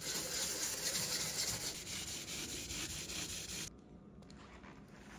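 Steady scratchy rubbing noise from hand work on a small part at a workbench, cutting off abruptly a little over three and a half seconds in.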